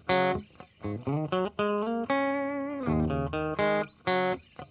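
Intro music: a melody of plucked guitar notes, several of them bent in pitch.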